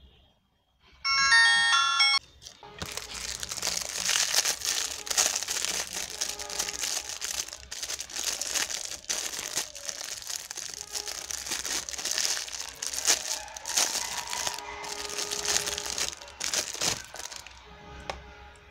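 About a second in, a Lava feature phone plays a short electronic tone lasting about a second. Then a thin plastic bag crinkles and rustles for most of the rest as wired earphones are unwrapped from it, fading out near the end.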